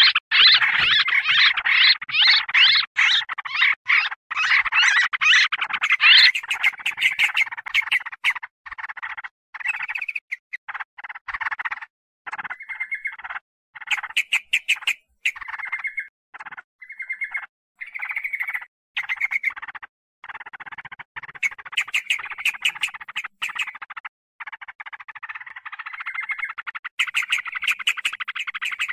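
Yellow-vented bulbuls (trucukan) chattering and squabbling, several birds calling over one another in a noisy, excited chorus, used as a trapping lure call. The chatter is loudest and densest in the first six seconds, then comes in short bursts broken by abrupt gaps, and thickens again near the end.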